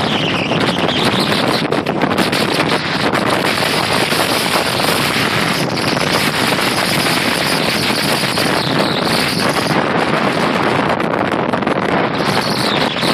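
Strong storm wind blowing across the microphone, mixed with heavy surf breaking: a loud, steady rushing noise.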